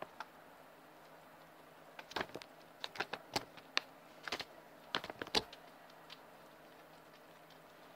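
A guinea pig moving right at the camera: a cluster of irregular sharp clicks and taps starting about two seconds in and lasting about three and a half seconds.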